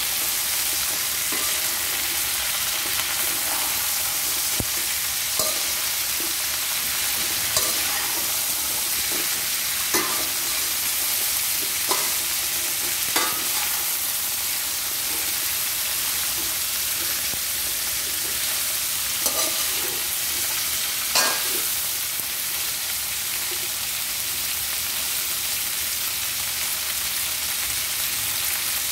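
Sitaw (yardlong beans) and ground pork sizzling in a metal wok while being stir-fried with a spatula, which clacks and scrapes against the pan every few seconds.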